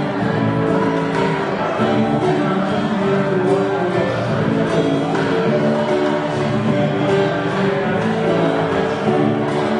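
Live acoustic music: a man singing with acoustic guitar, accompanied by a recorder and a hand-played clay pot drum.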